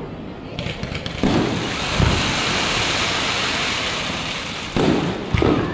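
Fireworks display: a handful of booms, and between them a long, dense hiss of bursting shells.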